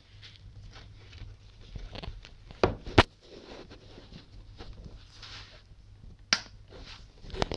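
Shortwave static from a Philips DL225 portable radio's speaker: hiss and crackle over a low hum, broken by four sharp pops, the loudest about three seconds in.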